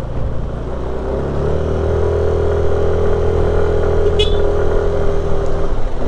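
Yamaha NMAX 155 scooter's single-cylinder engine working hard up a steep grade, its pitch rising a little about a second and a half in and then holding steady. A brief high squeak about four seconds in.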